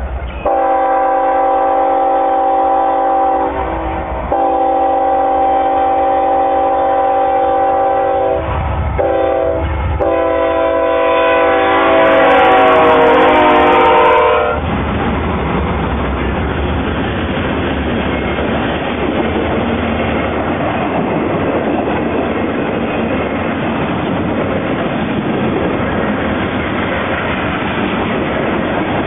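BNSF freight locomotives' multi-chime air horn sounding long, long, short, long, the grade-crossing signal, its pitch dropping as the locomotives pass about 14 seconds in. The horn then stops and the freight cars roll by with a steady noise of wheels on rail.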